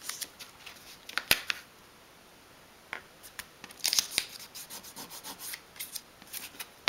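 Small pieces of printed paper being folded and creased by hand along a metal ruler: short, scattered crackles and light clicks of paper, in a few separate spells.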